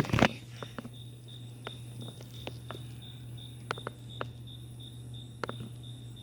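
Quiet outdoor background: a steady low hum, a faint high chirp repeating a few times a second, and scattered light clicks.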